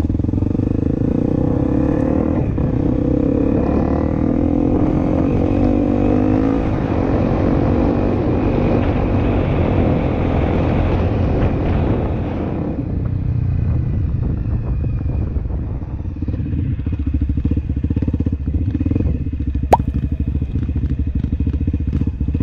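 Honda CRF250L dirt bike's single-cylinder four-stroke engine running while the bike is ridden, with a rushing noise over it. About halfway through, the rushing drops away and the engine runs on steadily; a single sharp click comes near the end.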